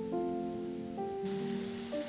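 Gentle background music of held melodic notes. A little past halfway, the hiss of meat patties sizzling as they fry in hot oil starts suddenly.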